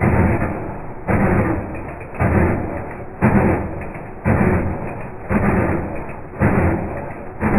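Honda B16A engine cranking over on the starter without starting, slowed down so each stroke comes as a deep pulse about once a second.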